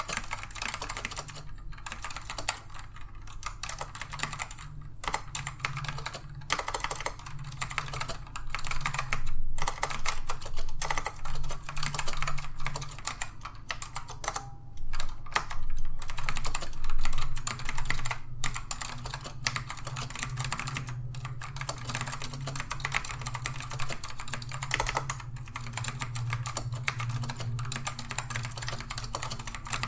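Fast typing on a Dell AT102W keyboard with black Alps switches: a dense, continuous run of keystroke clacks with a few brief pauses. The switches are tactile, not clicky.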